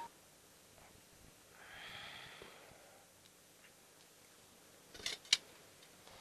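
A soft breath, exhaled about two seconds in, then two short sharp clicks just after five seconds. Otherwise quiet.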